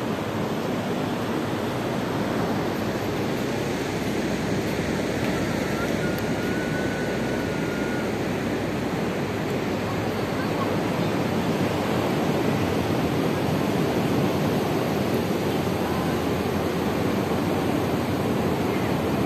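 Ocean surf breaking and washing up the beach, a steady rushing noise that grows a little louder in the second half.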